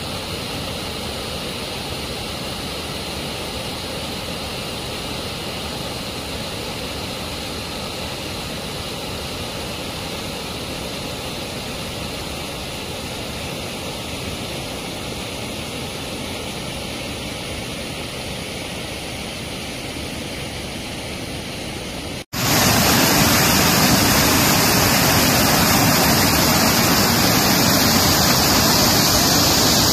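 Floodwater pouring over a river weir, a steady rush of water. About 22 seconds in it drops out for an instant and comes back much louder and hissier.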